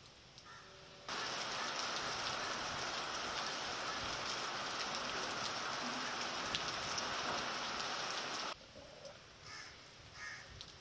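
Heavy rain pouring down: a loud, steady hiss that comes in suddenly about a second in and cuts off just as suddenly about eight seconds in, leaving a much quieter background.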